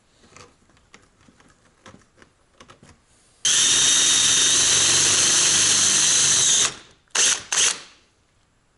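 Cordless drill boring a hole through a strip of high-purity copper bar laid on a wood block. A few faint clicks of handling, then the drill runs steadily for about three seconds and stops, followed by two short bursts of the trigger.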